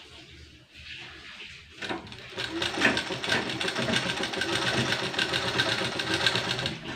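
Limbad straight-stitch sewing machine stitching down a folded fabric strip: it starts about two seconds in, runs fast and steady with a rapid even rattle of stitches, and stops just before the end.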